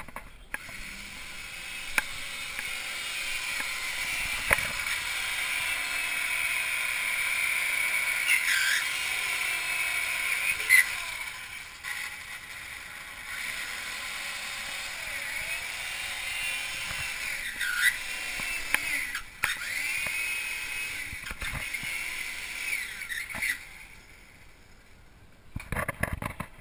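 Handheld electric drill whining steadily as it bores into the wooden hull of a racing runabout. Its pitch dips briefly a few times as the bit loads up, and it stops briefly twice. It stops near the end, and a few light clicks follow.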